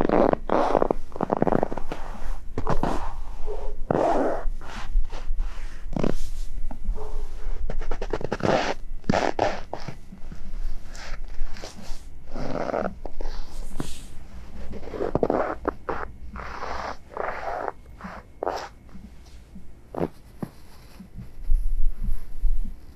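Boots crunching through deep, powdery snow in slow, uneven footsteps.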